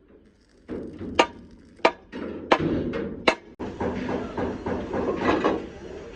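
Four sharp hammer blows on metal, evenly spaced, typical of panel-beating truck bodywork. About halfway through they give way abruptly to a steady workshop din.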